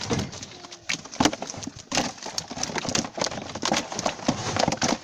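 Live carp slapping and flapping in a plastic tub as hands grab and shift them: a rapid, uneven run of wet slaps and knocks against the plastic.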